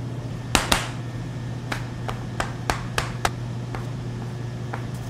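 A plastic bench scraper chopping dough into pieces, tapping down on the floured work surface: a string of sharp taps, the two loudest about half a second in, then about half a dozen more over the next few seconds. A steady low hum sits underneath.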